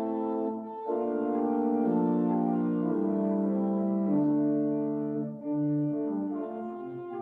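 Church organ playing a fanfare prelude in sustained full chords, the harmony and bass line moving every second or so.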